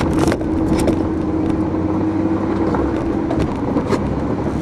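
Truck driving in four-wheel drive through heavy wet slush, heard from inside the cab: a steady engine hum and low rumble, with scattered sharp clicks and knocks.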